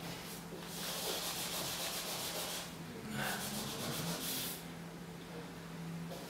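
Scrubbing, hissing strokes across the canvas as the painting is worked: one stretch of about two seconds, then a shorter one about a second later. A faint steady low hum runs underneath.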